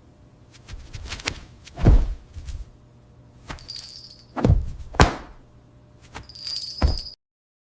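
A series of irregular knocks and thumps, the loudest about two seconds in and twice around five seconds in, with a faint high ringing tone twice. The sound cuts off suddenly near the end.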